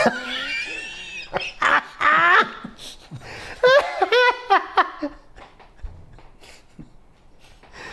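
Two men laughing heartily together in repeated bursts, loudest around two and four seconds in, then trailing off into quieter chuckles.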